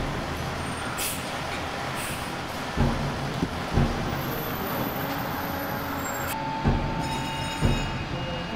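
Aerial ladder fire truck's diesel engine running steadily as the truck pulls up and stops, with four short low thumps.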